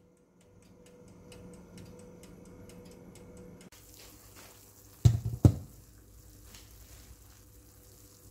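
A fan-forced oven running with a steady hum and faint ticking. About five seconds in, two clunks as a ceramic baking dish is set down on a stainless-steel trivet.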